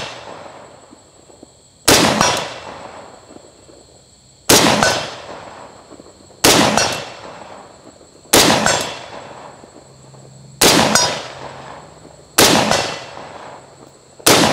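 SKS semi-automatic rifle firing 7.62x39 Tula 122-grain ball rounds, seven single shots at an unhurried pace of about one every two seconds, each followed by a fading echo. The last shot, near the end, is the eighth and last round loaded, emptying the rifle.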